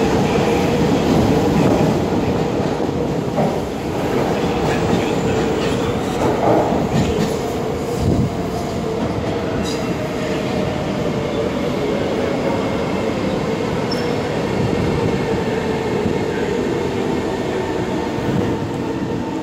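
Siemens C651 metro train pulling out of the station: its traction motors hum with a steady tone over the rumble of the wheels on the rails, with a few sharp clicks from the wheels partway through.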